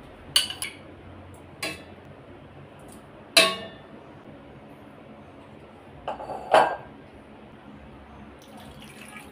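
Metal ladle and dish knocking and clinking against a stainless steel cooking pot as pieces of fish are put in: about six sharp clinks spread across several seconds, the loudest two about a third of the way in and about two-thirds of the way in.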